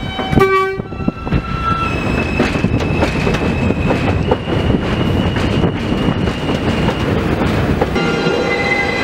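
New York City subway train: a short horn toot about half a second in, then the rumble of the cars on the rails under a steady high electric whine that steps up in pitch a few times. Near the end the tones change as another train's sound takes over.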